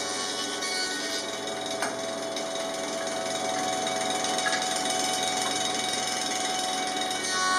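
Woodworking jointer running steadily while a board is pushed across its cutterhead, a continuous whir with a few held tones.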